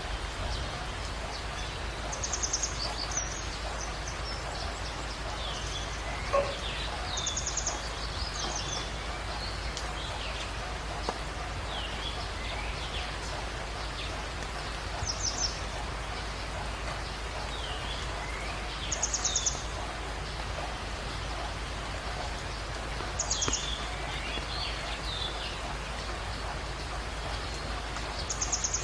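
Jungle birds calling over a steady hiss. One bird repeats a short, rapid high trill every few seconds, and others answer with brief chirps and whistles in between.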